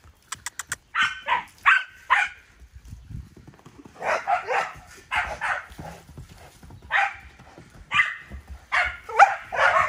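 Dog barking repeatedly, short sharp barks coming in clusters of two or three. Four quick sharp clicks come just before the first barks.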